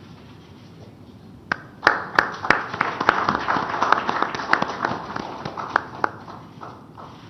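Applause, a patter of many hands clapping, starting about a second and a half in and dying away near the end.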